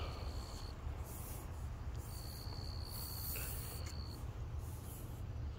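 An insect trilling outdoors: a thin, steady high-pitched tone, briefly at the start and again for about two seconds from about two seconds in, over a low background rumble.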